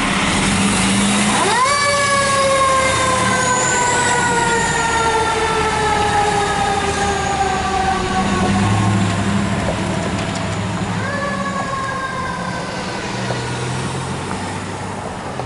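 Pierce Enforcer fire engine's mechanical siren wound up twice, each time rising quickly to a wail and then slowly winding down, over the rumble of the truck's engine as it pulls away and grows fainter.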